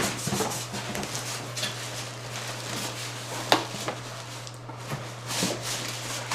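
Cardboard box and its packing being handled and tugged at: rustling and scraping, with several short knocks, one sharper about three and a half seconds in.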